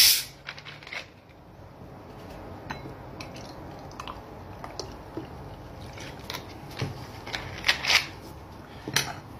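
A plastic bottle of cola is twisted open with a sharp hiss of escaping gas. The cola is then poured into a glass tumbler and fizzes steadily, with a few sharp knocks near the end.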